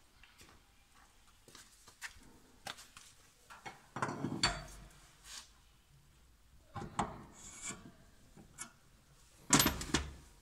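Metal clunks and scraping as a pillow-block bearing unit is worked off its steel shaft by hand. Scattered light clicks, with three heavier knocks or scrapes, the loudest near the end.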